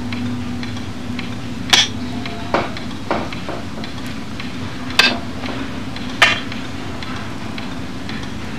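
Five sharp clicks or clinks at uneven intervals over a steady low hum.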